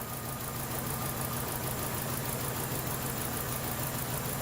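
2012 Chevrolet Cruze four-cylinder engine idling steadily with a misfire, one cylinder's ignition coil not sparking.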